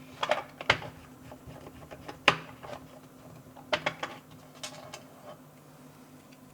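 Irregular light clicks and taps of small screws, a screwdriver and plastic case parts being handled while a radio-control transmitter is reassembled, the sharpest about two seconds in, over a faint steady low hum.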